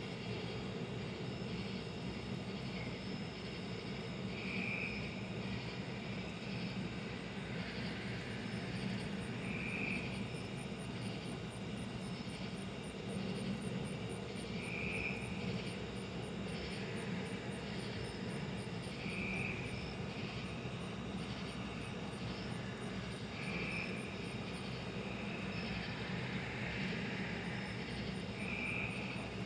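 A steady low hum with no change in level. A short high chirp repeats about every five seconds, and a faint fast high ticking runs beneath it.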